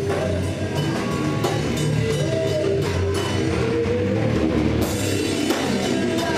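Rock music from a band: a drum kit keeping a steady beat under guitar.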